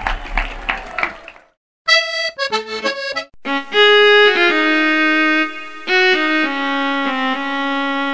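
Background music: after a brief break, a run of quick staccato notes, then long held chords.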